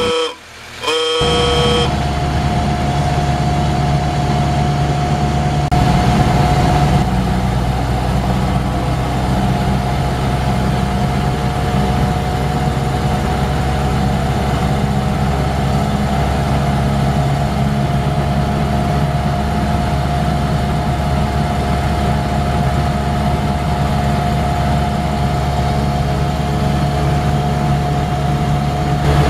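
A brief horn toot about a second in, then a 1931 Ford Model A's four-cylinder engine running steadily as the car drives at road speed.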